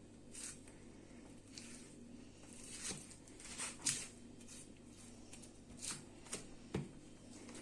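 Kitchen knife trimming the fat off a piece of raw beef: quiet, irregular slicing and scraping strokes with a few sharper clicks.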